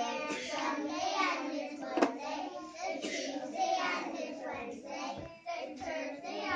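A group of young children singing together unaccompanied, with a single sharp clap or knock about two seconds in.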